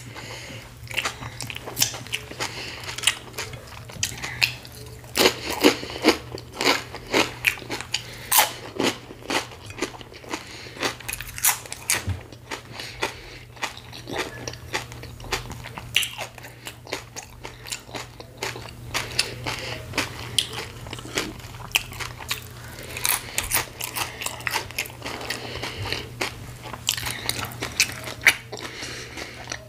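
Close-miked chewing with many crisp, crackly crunches, heaviest a few seconds in and again near the end, over a steady low hum.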